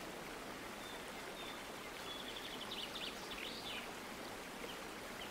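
Steady background hiss, with a few faint high chirps about two to four seconds in.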